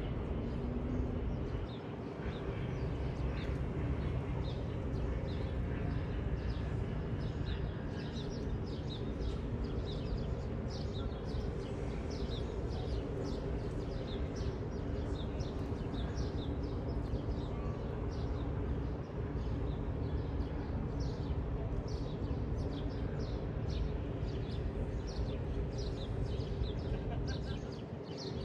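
Small birds chirping in short, quick notes, several a second, over a steady low background rumble.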